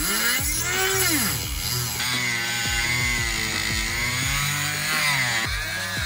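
Handheld corded rotary tool grinding into the metal Neiman steering-lock housing on a Land Rover Defender's steering column, its whine rising and falling as it bites, with background music; the sound changes abruptly twice.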